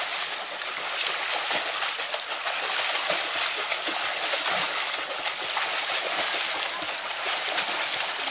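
Children flutter-kicking across a swimming pool on kickboards, their feet splashing the water continuously.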